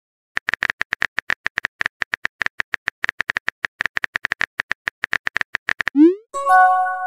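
Rapid, irregular clicking of a phone keyboard typing sound effect, about ten clicks a second for some five seconds, as the next chat message is typed. It ends with a rising swoosh of the message being sent and a short chord-like chime.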